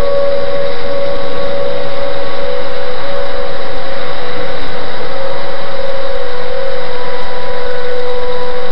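Outdoor warning sirens sounding a steady tone for a severe storm warning, under the dense hiss of heavy rain.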